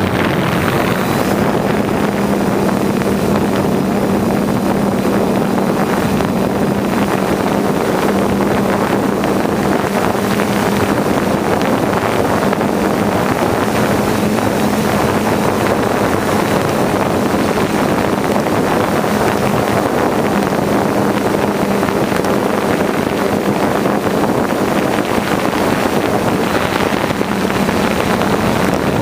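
Quadcopter drone's motors and propellers running with a steady hum, with wind noise on the on-board microphone.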